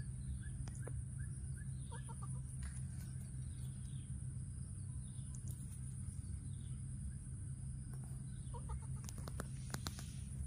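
Outdoor ambience with a steady high-pitched insect drone over a low rumble. Short clucking calls come twice, about two seconds in and again near the end, with a few faint chirps and clicks between.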